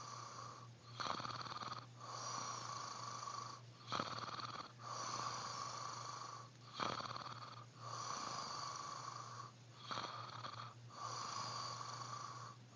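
A man snoring in his sleep, in a steady rhythm of about four breaths, each a longer snore followed by a shorter one.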